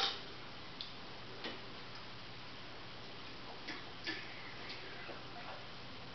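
A fork clicking and tapping against a dish in irregular, scattered taps, the loudest right at the start, over a steady low hiss.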